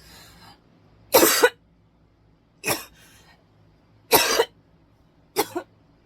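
A person coughing hard: four separate coughs about a second and a half apart, with short breaths drawn in between.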